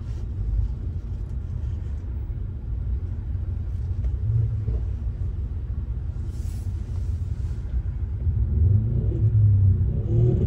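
Low, steady car-engine rumble heard from inside a car moving off in slow convoy traffic. From about eight seconds in it grows louder as the Ford Mustang just ahead makes its engine heard.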